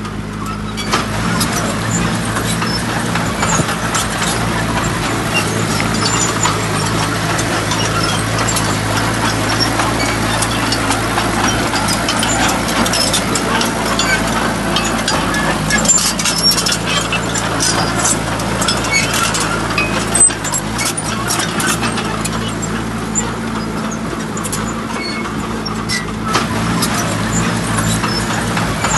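Heavy diesel engine running steadily, with scattered clicks and rattles over it and one sharper knock about twenty seconds in.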